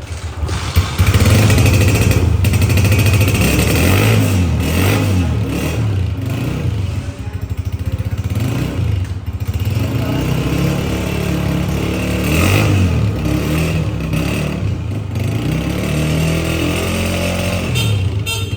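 Brand-new Honda CG 125's air-cooled single-cylinder four-stroke engine running and revved several times, its pitch rising and falling. It gets louder about a second in.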